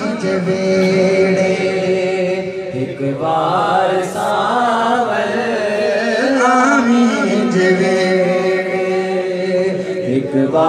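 A man singing a Saraiki devotional kalam (naat) through a microphone and PA, drawing out long, ornamented held notes with no clear words, over a steady drone.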